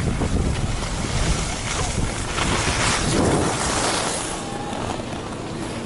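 Wind buffeting an action camera's microphone while skiing downhill, over the hiss of skis sliding on snow; the hiss grows brighter for a second or so about two and a half seconds in as the skis are edged into a turn.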